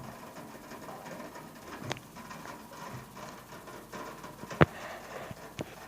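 A faint, steady background hiss with a few sharp clicks or taps. The loudest click comes a little past halfway.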